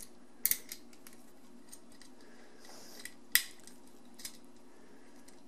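A few sharp metallic clicks and ticks of small hardware being handled: a ground screw and its metal clamp piece being fitted at a dishwasher's electrical connection. The two loudest clicks come about half a second in and a little after three seconds. A low steady hum runs underneath.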